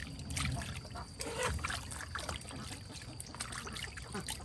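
Water trickling and splashing, with irregular light knocks.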